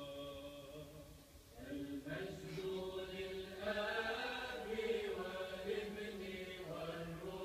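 Religious vocal chant: voices holding long sung notes, with a brief dip about a second and a half in before the chanting swells again with several voices.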